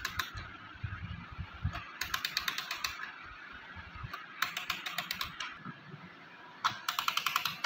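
Winding key turning the mainspring arbor of an old brass pendulum wall-clock movement: the ratchet clicks rapidly in three bursts of about a second each, one burst per turn of the key.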